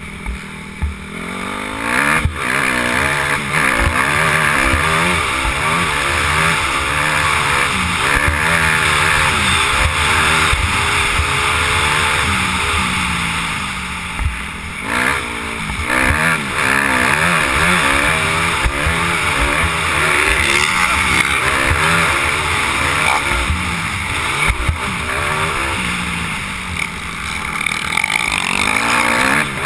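Motocross bike engine revving hard and rising and falling in pitch as the rider shifts and works the throttle through turns. It drops off briefly about halfway through and again near the end, where the throttle is shut off.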